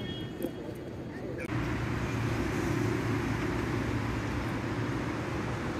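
Steady outdoor background noise, a low hum under an even hiss, that starts abruptly about one and a half seconds in.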